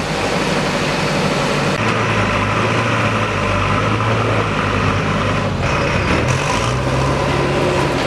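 Heavy machinery engine running steadily at a low, even pitch, with a shift in its note a little past the middle.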